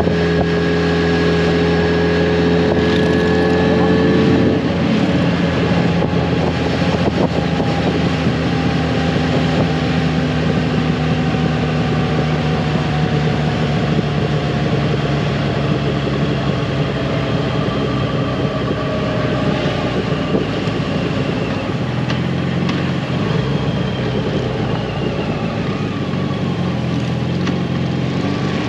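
Yamaha FJR1300's inline-four engine running at a steady cruise, its pitch drifting slowly up and down, with wind rushing over the microphone.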